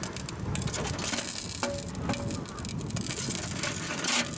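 Metal tongs clicking and scraping against the wire grill rack and stainless-steel drum of a smoker as pieces of meat are turned, over steady background noise.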